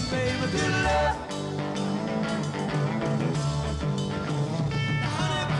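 Soundtrack song: rock-style music with guitar, a steady bass line and a voice singing.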